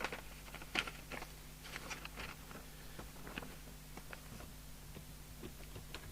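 Scattered small clicks and rustles of objects being handled on a workbench, over a faint steady hum.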